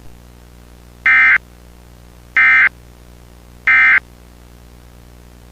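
EAS SAME End of Message data signal: three short identical bursts of high-pitched digital warbling, about a second apart, marking the close of the alert.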